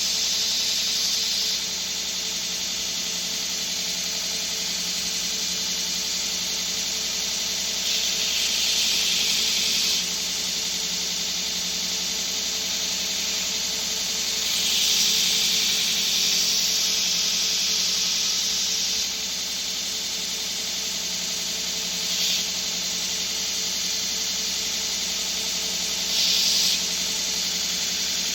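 Knife-making belt grinder with a 60-grit belt running with a steady motor hum, under the hiss of a steel blade being ground. The hiss swells in several passes, a few long and two short, as the blade's bevel is pressed against the belt.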